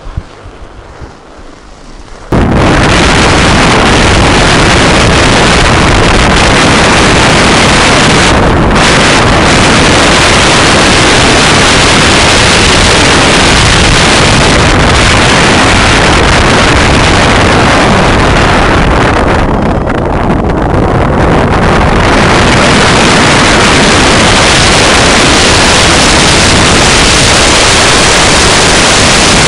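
Heavy wind buffeting the microphone of a camera on a mountain biker riding fast downhill on snow. It is a loud, even rush that sets in suddenly about two seconds in.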